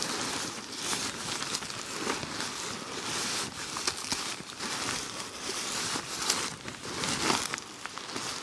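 Irregular rustling and crinkling of camping gear being handled and packed up, with scattered small clicks.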